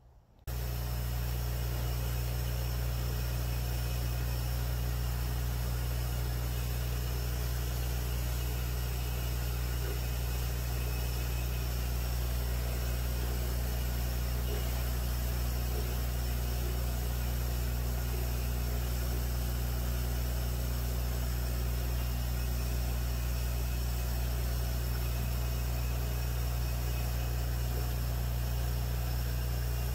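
Aquarium air pump and bubbling air stone in a turtle tank running, a steady low hum with an even hiss, starting suddenly about half a second in.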